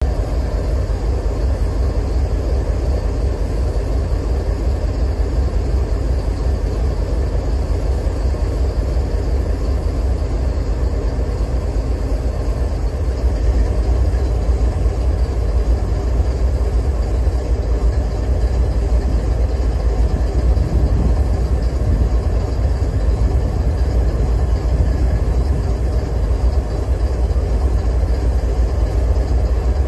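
GE diesel-electric locomotive engine idling: a steady low rumble that gets a little louder about halfway through.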